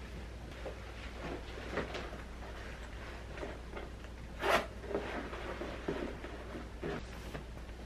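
A series of soft household handling knocks and rustles over a low steady hum, with one sharper knock about four and a half seconds in.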